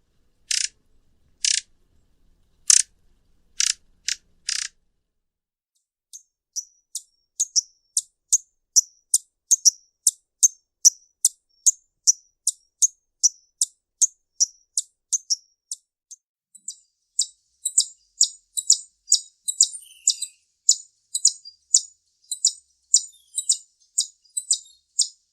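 Violetear hummingbird calling: several sharp, high chips, then after a short pause a long monotonous series of quick high chip notes, about two to three a second, growing denser in the second half.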